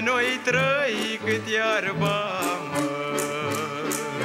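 Romanian folk band playing an instrumental break: an ornamented lead melody over a bass line that alternates between two notes on a steady beat.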